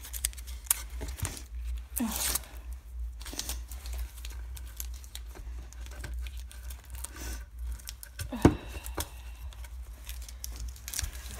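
Blue painter's tape and the paper pattern being peeled off a painted wooden board in irregular short rips and crackles, the peeled tape scrunched up in the hands. The loudest rip comes about two-thirds of the way through.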